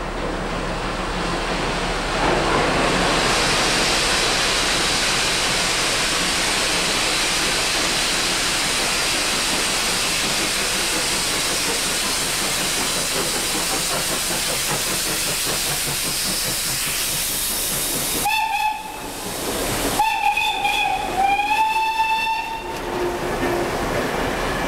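NSW C32 class 4-6-0 steam locomotive 3112 working through a tunnel with a steady loud hiss, then sounding its steam whistle three times: a short toot, then two longer blasts close together.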